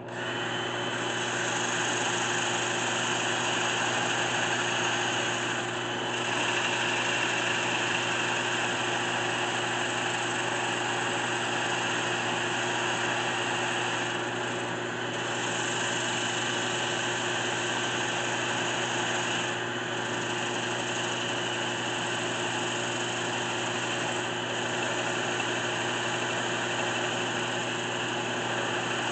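A 1981 Delta 12-inch wood lathe and a cordless drill running together, the drill spinning a foam-backed sanding disc against the turning spalted maple tray: a steady motor hum and whine under a sanding hiss, with a few brief dips in level.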